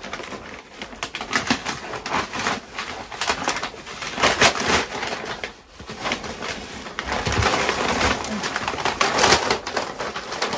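Cardboard shipping box being opened and handled: packing tape ripping, and cardboard and packing paper rustling and scraping in a run of short rips and rustles.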